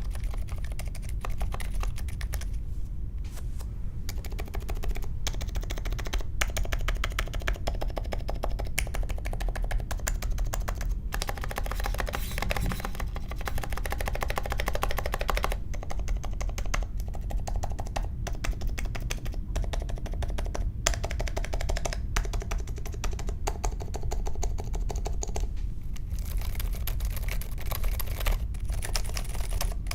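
Mechanical keyboard with unlubed Akko CS Vintage White linear switches, in an aluminium case with foam and tape mods and clipped stabilizers, being typed on continuously: a fast, dense stream of key clacks with a few brief pauses.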